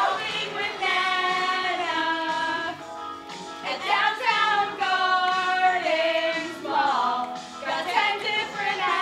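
A group of young women singing a song together in unison, holding long notes and sliding between them.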